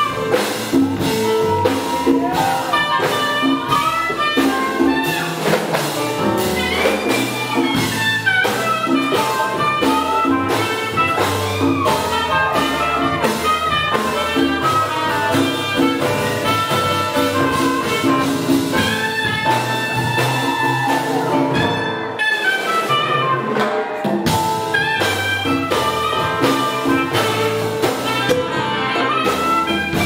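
Afro-Cuban big band jazz: horns playing over a steady, driving beat from congas, timbales and drum kit.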